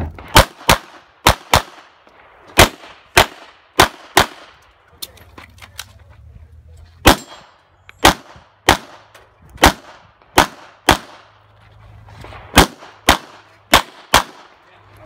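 Semi-automatic pistol shots fired mostly in quick pairs, about eighteen shots in all, with short pauses between pairs. Each shot is a sharp crack with a brief echo after it.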